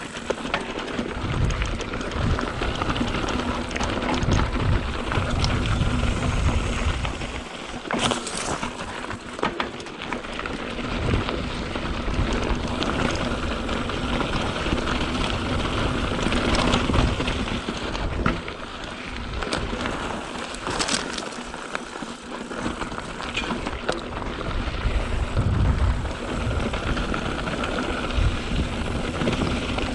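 Mountain bike riding down a dirt singletrack: tyres crunching over dirt, sand and rocks, with the bike rattling and knocking over bumps and wind buffeting the microphone in gusts.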